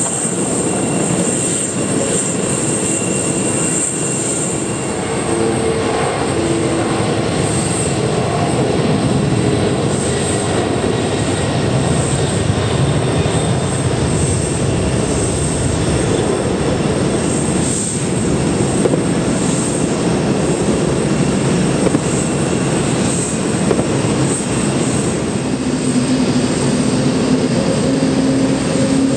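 Four turbofan engines of a Boeing 747-400D jumbo jet running at takeoff thrust: a steady, continuous jet noise through the takeoff roll, liftoff and initial climb.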